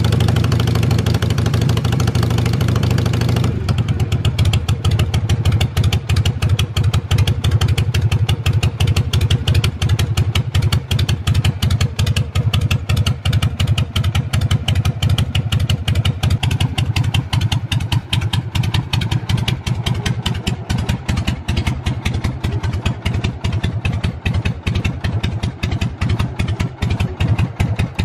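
Harley-Davidson Shovelhead V-twin engine idling steadily, each firing beat distinct. About three and a half seconds in the sound changes abruptly and thins, leaving the separate beats standing out more clearly.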